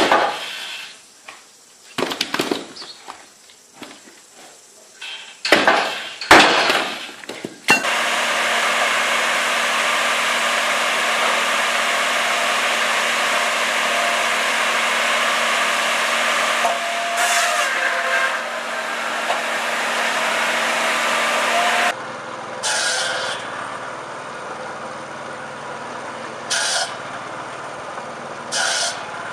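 Firewood being split and sawn by machine: a run of sharp knocks and cracks of wood, then a loud steady machine noise with a constant hum that cuts off suddenly, then a quieter engine running with a few short knocks.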